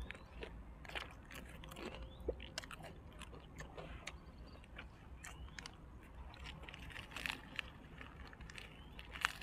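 Close-up chewing and crunching of fried dried squid: irregular crisp crunches and mouth clicks throughout, a few louder bites standing out.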